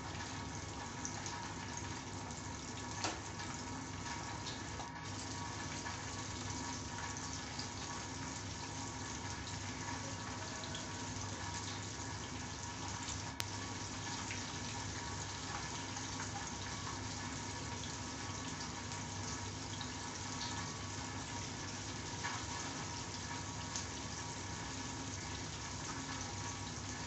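Flour-coated chicken drumsticks deep-frying in hot oil in a pan: a steady sizzle. A few light clicks come from tongs turning the pieces in the pan.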